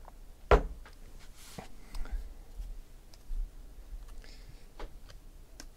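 Trading cards being handled by hand: a sharp knock about half a second in, then soft rustles and light clicks as the cards are moved through the fingers.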